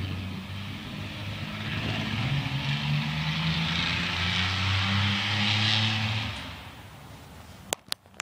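Straight-piped 1993 Dodge Dakota 3.9-litre V6, with no catalytic converter or muffler, running hard and loud with a raspy exhaust. It is loudest about five to six seconds in, with one drop in pitch midway, then dies away. A few sharp clicks near the end.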